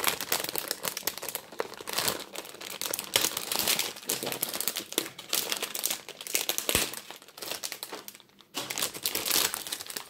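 Thin clear plastic packaging bag crinkling and rustling as hands tear it open at the cardboard header, with a short pause a little after eight seconds.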